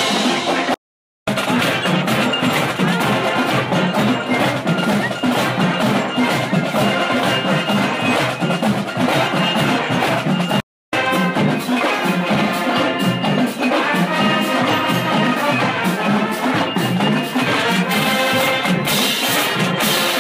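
Marching band playing on the march: brass with sousaphones over snare drums, bass drums and cymbals. The sound drops out briefly twice, about a second in and again about eleven seconds in.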